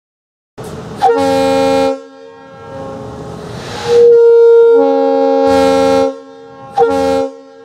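Multi-chime railroad air horn blown off compressed air, sounding a chord in three blasts: a short one about a second in, a longer one from about four seconds in that opens on one note before the other chimes join, and a short one near the end. Air hisses before and between the blasts.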